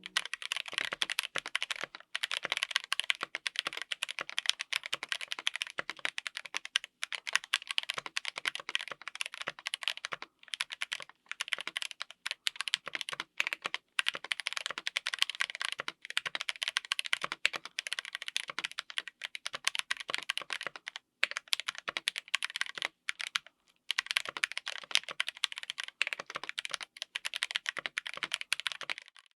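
Mechanical keyboard with stock Akko CS Jelly Black linear switches on an FR4 plate, typed on quickly: a fast, dense run of keystrokes broken by a few short pauses.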